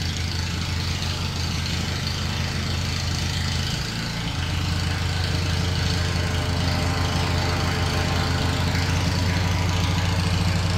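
Insulation blowing machine running steadily, its motor humming with air rushing through the hose as loose-fill insulation is blown into the attic. The hum dips briefly about four seconds in, then runs slightly louder.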